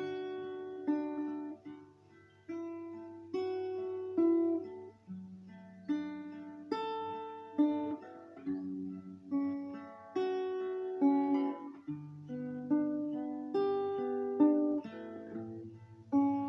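Instrumental music: a plucked guitar picking single notes and chords, each struck sharply and left to ring and fade, over a steady low bass tone.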